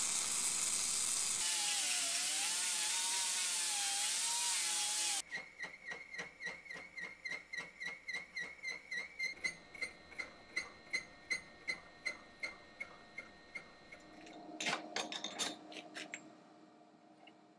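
Brazing torch flame hissing steadily while rod is melted onto the broken flat-belt step pulley, cutting off abruptly about five seconds in. Then the pulley spinning in a milling machine spindle is turned against a cutting tool, a rhythmic ringing tick about three times a second, followed by a brief clatter near the end.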